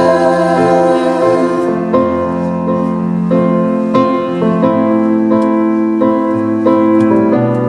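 Piano playing an instrumental passage of a song, held chords with notes struck at an even pace.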